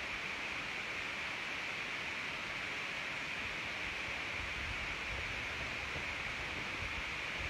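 Steady hiss of a wall-mounted air conditioner running in a small room, with a faint low rumble from about four and a half seconds in as the phone is handled.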